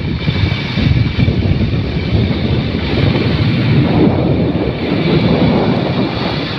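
Wind rushing and buffeting over a phone's microphone held at the open window of a moving car, over the car's steady road noise; a loud, rough rumble that rises and falls without letting up.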